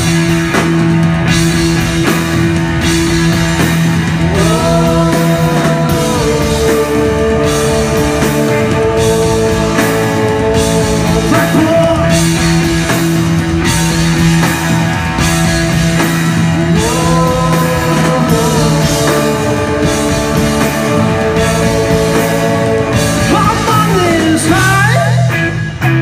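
Rock band playing live: electric guitar, bass guitar and drum kit with cymbals, loud and dense. Held melodic notes slide up in pitch twice and then sustain.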